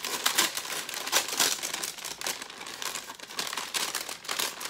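Wrapping being crinkled and rustled by hand as a small wrapped package is opened, in a rapid, irregular run of crackles.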